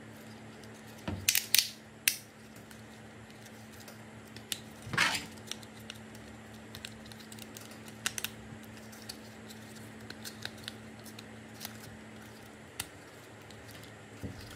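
Plastic robot toy being transformed by hand: its jointed parts click and snap as they are folded, loudest in a cluster of sharp snaps a second or two in, with a short scraping click around five seconds in and lighter ticks after.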